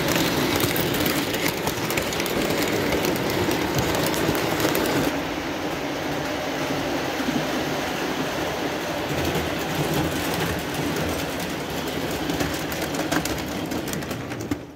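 Lionel O-gauge Amtrak passenger train rolling on three-rail tubular track: a steady rumble of wheels on the metal rails, dense with fine clicks. The sound turns duller about five seconds in.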